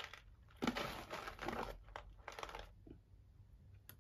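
A packet of cloves crinkling as it is opened and handled, in two rustling spells, followed by a light click near the end.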